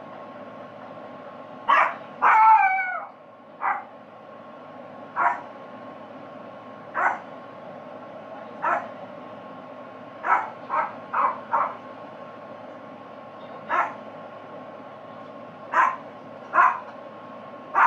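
A dog barking offscreen: single barks every second or two, with one longer, falling bark about two seconds in and a quick run of four barks about ten seconds in.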